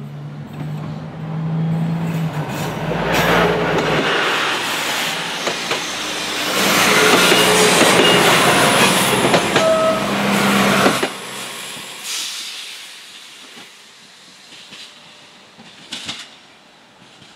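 PESA SA134 diesel railcar passing close by: engine hum and wheel-on-rail rumble building to a loud peak, with a few short high squeaks from the wheels, then dropping off suddenly about eleven seconds in and fading as the railcar runs away, with a single click near the end.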